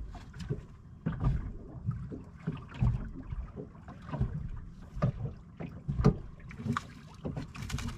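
Water slapping against a small boat's hull, with irregular knocks and thumps about once a second and some wind on the microphone.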